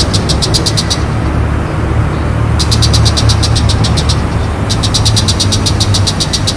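Shrike calling in runs of rapid, evenly repeated high notes, about nine a second. Three runs: one fading about a second in, then one at the middle, then one to the end. A loud, steady low rumble lies underneath.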